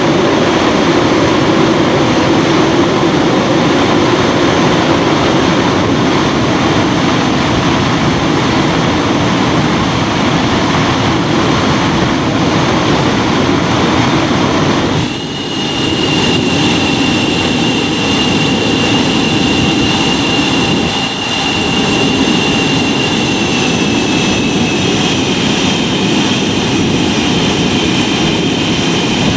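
Handmade turbojet engine running on its test stand with a loud, steady rushing noise. About halfway through, a high whine comes in over it and then slowly sinks in pitch as the engine speed eases down.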